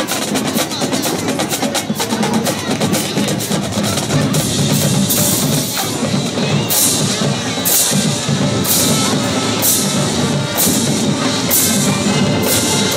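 Marching band percussion playing: rapid drum strokes over a low drum pulse. From about four seconds in, a bright crash lands roughly once a second.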